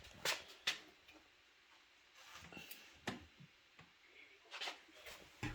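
A few faint, scattered clicks and light knocks from small objects being handled.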